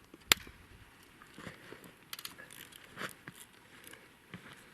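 Hand tools and parts being handled during cylinder-head removal: one sharp click about a third of a second in, then scattered small clicks and crunches.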